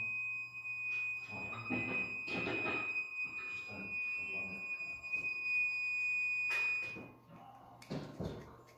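A steady, high-pitched electronic tone like a buzzer, which cuts off about seven seconds in. Low, indistinct voices can be heard beneath it at first.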